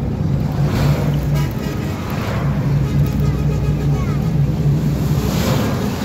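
Steady low engine drone and road noise heard from inside a moving vehicle. Other vehicles rush past about a second in, around two seconds, and again near the end.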